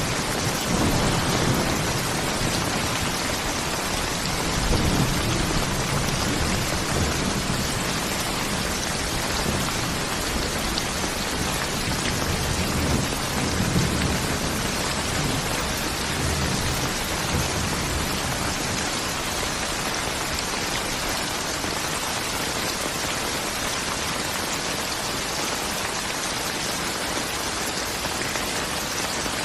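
Steady rain falling, with low rolling thunder rumbling through the first half and dying away about halfway through.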